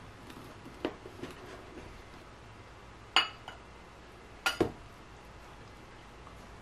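Metal knife and dishes clinking as a slice of cake is cut and lifted onto a plate. There are a few soft knocks in the first second or so, then a sharp ringing clink about three seconds in and two quick clinks about a second and a half later.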